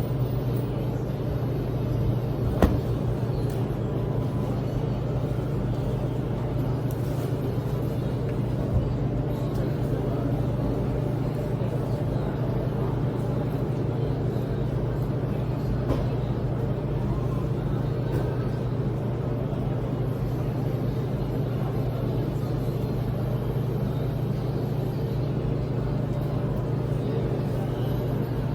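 Steady low hum of laundromat machines running, with a couple of brief knocks, one about two and a half seconds in and another about nine seconds in.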